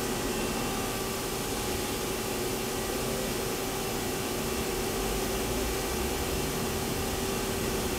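Nakamura-Tome WTS-150 CNC turning center running: a steady machine hum with a constant mid-pitched tone, as the upper-left turret is jogged along its X axis. A low rumble comes in about five seconds in.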